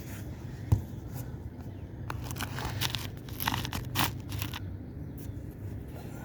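A single thump about a second in, then about two and a half seconds of rustling and crinkling.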